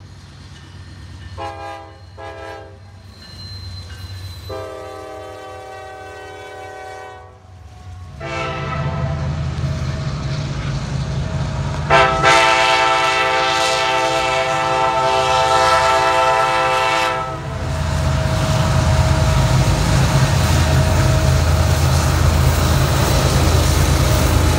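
Train horn sounding short chords, then a long loud multi-tone air-horn blast from an approaching Norfolk Southern diesel locomotive about halfway through. It is followed by the heavy rumble of the diesel locomotives as the lead units pass close by, the loudest part.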